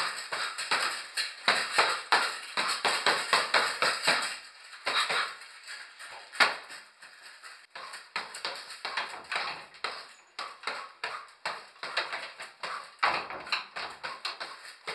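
A quick, uneven run of sharp knocks, several a second, with a short lull about five seconds in and one louder hit soon after.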